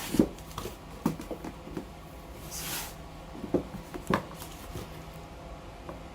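Laptop packaging being handled: a few light knocks and a short rustling swish about two and a half seconds in.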